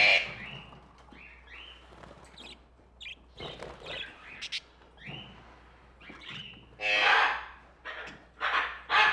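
Tropical cage birds in a pet shop calling: short rising chirps, then several loud, harsh squawks, the loudest about seven seconds in and near the end.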